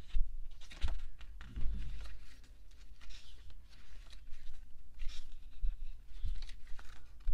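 Glossy pages of a small album booklet being turned by hand: irregular paper rustles and soft flaps, with light knocks as the booklet is handled.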